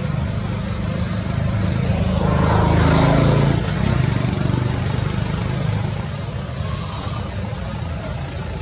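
A motor vehicle's engine running steadily, growing louder to a peak about three seconds in and then easing off.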